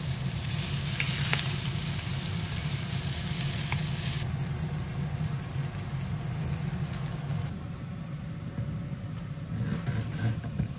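Mottled spinefoot fillets sizzling in butter and oil in a frying pan. The sizzle falls away sharply about four seconds in, over a steady low hum, with a few faint knocks near the end.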